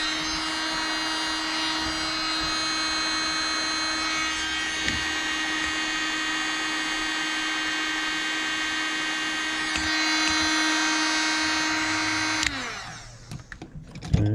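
Dynamite .28 big block nitro engine in an RC car running at a steady idle with a high buzzing whine, getting slightly louder near ten seconds in. About twelve and a half seconds in it cuts out, its pitch sliding down briefly as it stops, having run out of fuel.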